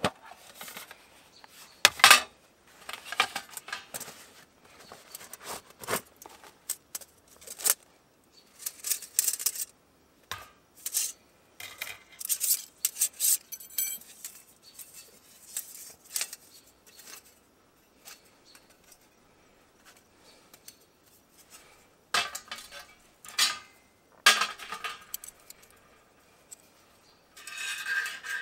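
Metal panels, grate and tray of a Firebox Freestyle folding camp stove clinking and clattering as it is handled and assembled. The sharp clicks and short rattles come in uneven bursts, the loudest clank about two seconds in, with a quieter lull before more clatter near the end.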